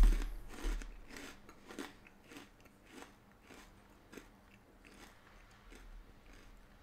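A crunchy Flamin' Hot Sweet Carolina Reaper Cheeto being bitten and chewed close to the microphone: a loud crunch at the bite, then crunches about every half second that grow fainter as the snack breaks down, dying away about halfway through.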